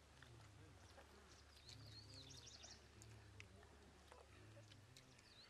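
Faint birdsong: a bird sings a short, high phrase that rises and then warbles, once about two seconds in and again starting near the end, over a low steady hum.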